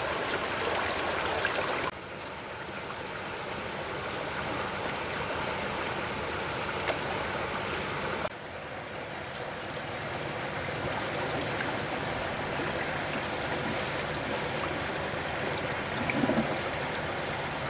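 Shallow creek water trickling and running over mud and stones, a steady rushing noise that drops abruptly twice and swells back.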